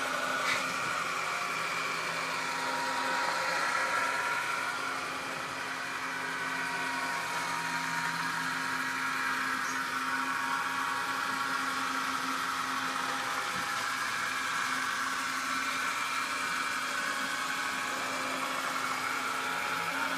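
HO scale model trains running: a steady whir of the locomotive motors and wheels rolling on the track, with a whine that wavers slightly in pitch.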